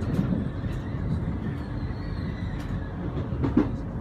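Inside a moving Heathrow Express electric train: the steady low rumble of the carriage running on the rails, with scattered light clicks and a short knock about three and a half seconds in.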